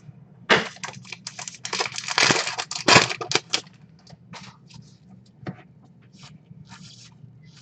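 A baseball card pack wrapper crinkling and tearing as it is opened, in a burst of about three seconds, then cards handled with scattered soft clicks and rustles.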